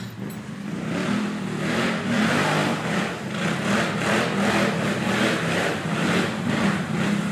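Quad bike engines running, with a rushing noise that pulses about two to three times a second as a quad drives through deep mud.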